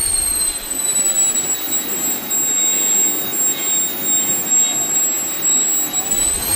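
Kingtech K-210 G4 model jet turbine running. Its high whine falls over the first two seconds as the engine spools down to idle, about 32,000 rpm, then holds steady over a rushing exhaust noise. Near the very end the whine begins to rise again as the throttle is opened.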